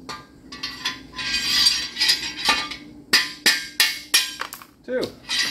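Hammer blows on a long socket extension run through a cast iron engine block, driving out an oil gallery plug: metal clinks, then a quick run of about five sharp ringing strikes, about three a second, starting about three seconds in.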